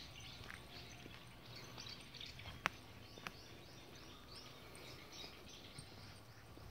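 Quiet outdoor ambience: a faint steady hiss with scattered small chirps and light rustling. There is one sharp click about two and a half seconds in, and a smaller one about half a second later.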